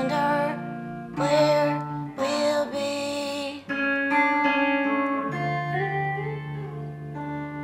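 Les Paul-style electric guitar played clean, its chords ringing out as the song's closing passage. A wordless wavering sung line sits over the first three seconds or so. After that the guitar chords ring on alone and slowly fade.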